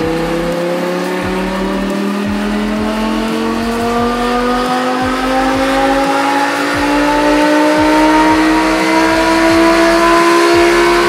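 Audi R8 5.2 L V10 engine through an EVOX ValveTronic exhaust, making one long pull on a chassis dyno. Its pitch climbs slowly and steadily the whole time as the revs build in a single gear.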